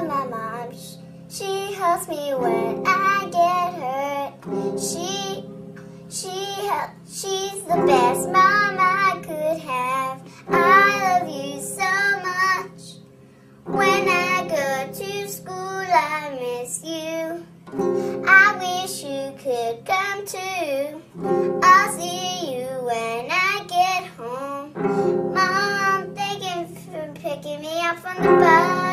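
A young girl singing a slow song in phrases with short pauses, accompanying herself on an acoustic guitar with chords strummed every few seconds.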